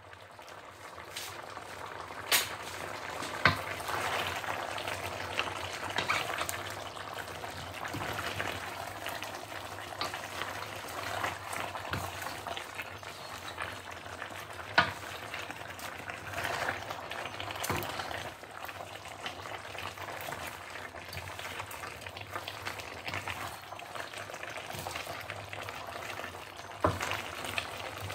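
Chicken, vegetables and wild garlic leaves sizzling in a stainless steel wok while being tossed with wooden spatulas: a steady frying hiss, with a few sharp knocks of the spatulas against the wok.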